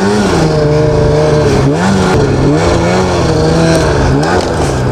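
Ski-Doo MX Z snowmobile's two-stroke engine running on the move, its pitch dropping and rising a few times as the throttle is eased off and opened again.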